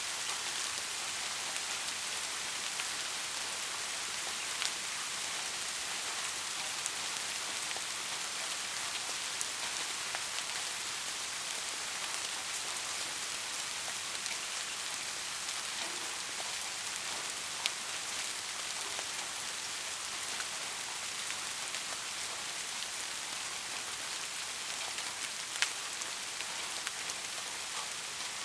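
Soft, steady rain: an even hiss of drops, with now and then a single sharper drop tick standing out.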